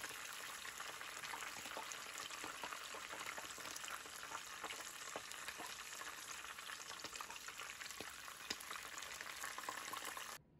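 Breaded cutlet deep-frying in a pan of oil: a steady sizzle with many small crackles and pops. It cuts off suddenly near the end.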